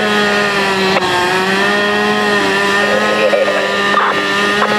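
Two-stroke gas-powered roof ventilation saw running at high, steady revs as it cuts into an asphalt-shingle roof.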